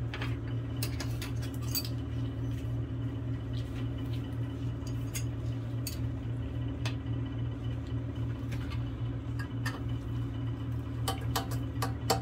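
Scattered clicks and clinks of small metal bench-grinder parts (brackets, screws and washers) being handled, bunching up near the end as a bracket is held against the grinder's wheel guard, over a steady low background hum.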